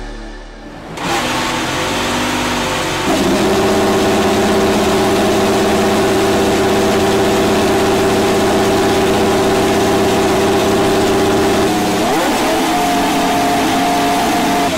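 Ferrari F1-75 Formula 1 car's 1.6-litre turbocharged V6 engine firing up for its first start and running at a steady fast idle. About two seconds after it catches it steps up to a higher steady speed, and near the end it revs up in a short rise and holds the higher note.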